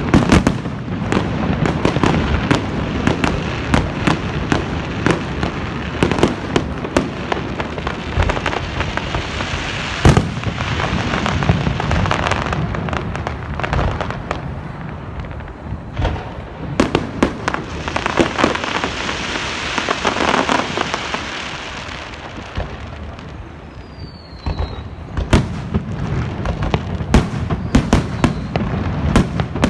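Fireworks display: a steady barrage of sharp bangs and booms over dense crackling, easing off briefly about three quarters of the way through before the bangs pick up again.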